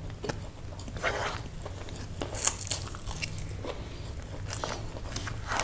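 A person eating stir-fried noodles close to the microphone: slurping strands in off a fork and chewing, with wet mouth clicks.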